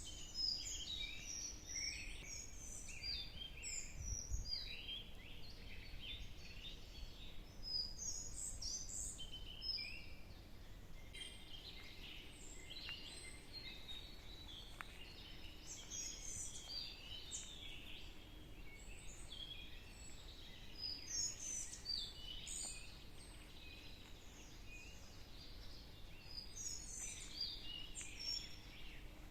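Several songbirds singing and chirping at once, overlapping short trills and chirps, over a faint low rumble.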